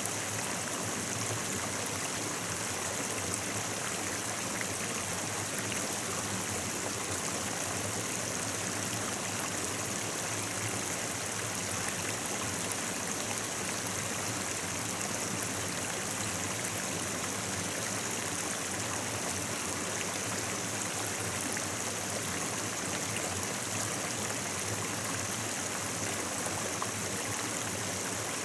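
Stream water flowing steadily, an even, unbroken sound of running water.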